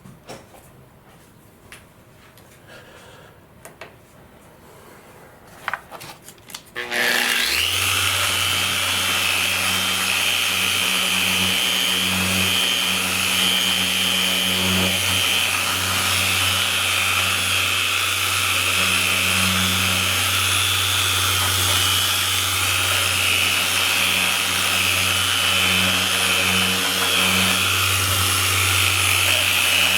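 A few light handling clicks, then an electric polishing and buffing tool switches on about seven seconds in and runs steadily, polishing the glider's plastic fuselage with compound.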